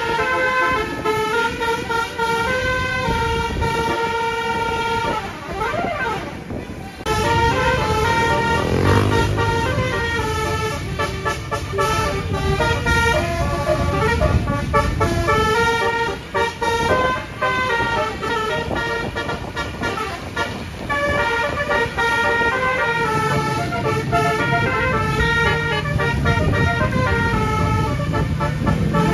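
Telolet horn of a Putera Utama Rahma bus: a multi-tone basuri horn playing quick tunes of stepped notes almost without pause, with a short break about six seconds in. Engine and road noise run underneath.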